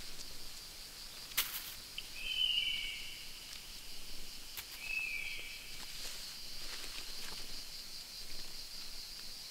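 Steady high-pitched insect trill, with two short bird chirps a few seconds apart and a sharp click just before the first chirp.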